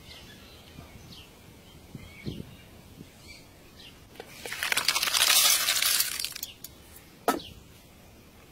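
Hard snail shells clattering together for about two seconds as a batch of freshwater snails is tipped into a woven bamboo basket, followed by a single sharp knock. Birds chirp faintly in the background.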